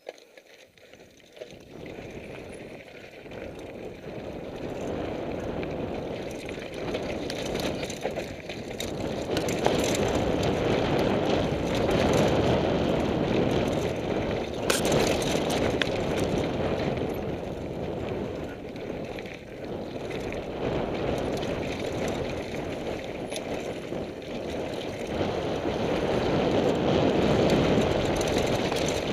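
Downhill mountain bike descending a loose, rocky dirt trail: a steady rush of wind on the microphone and tyres rolling over gravel, building as the bike gathers speed over the first several seconds, with the bike clattering over rocks and a sharp knock about fifteen seconds in.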